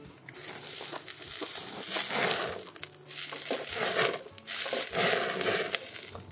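Oil and fat sizzling on a very hot steel griddle as a lump of fat is pressed onto the plate and flares up in flame. The hiss comes in three long surges.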